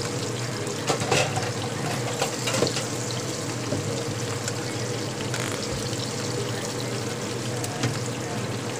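Dried salted sardines (tuyo) sizzling steadily in hot oil in a frying pan, with a few clicks of metal tongs against the fish and pan about a second in and again around two and a half seconds.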